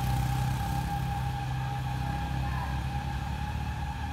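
Diesel truck engine running steadily at low revs, with a steady high whine over it, slowly fading.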